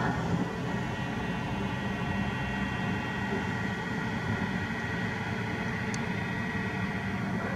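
Komatsu PC350 hydraulic excavator's diesel engine running steadily, with a steady high whine over a low rumble.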